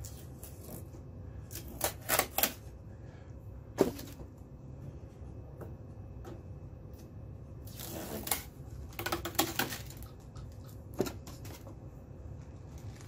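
Packing tape being peeled off the plastic housing of a 3D printer: a few sharp clicks and snaps early on, then two longer rasping pulls about eight and nine seconds in, with more handling clicks after.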